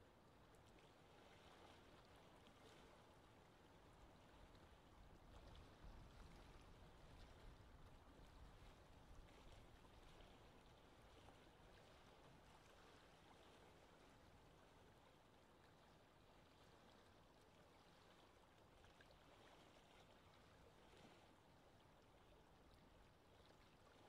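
Faint lapping water: a soft, even wash that swells a little from about five seconds in to about ten seconds in, then settles.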